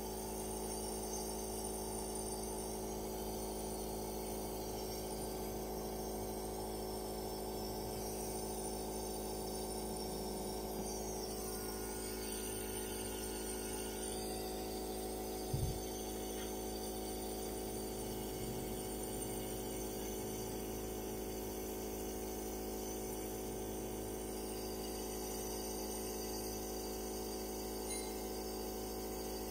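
Compressor nebulizer running with a steady mechanical hum, with a brief thump about halfway through.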